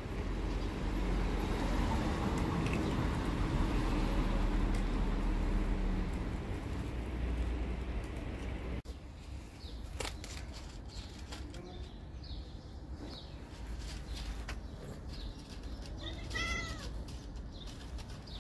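A cat meows once near the end, a single rising-and-falling call, with stray cats eating around it. For roughly the first half a steady rumbling background noise runs, then drops away abruptly about nine seconds in.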